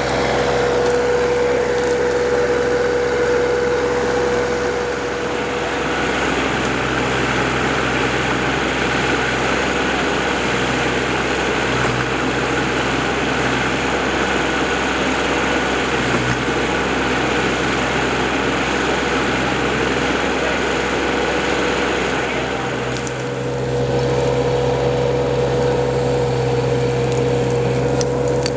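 Backhoe engine running steadily as the machine digs. Its note eases about six seconds in and picks up again about five seconds before the end.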